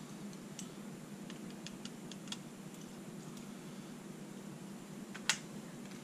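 Small metallic clicks and ticks from tiny lock pins and a slim pick being handled. They are scattered, with a cluster in the second second and one sharper click about five seconds in, over a steady low hum.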